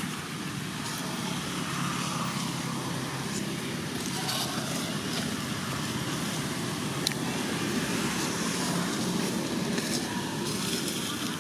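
Steady low rumble of distant motor traffic, with a single sharp click about seven seconds in.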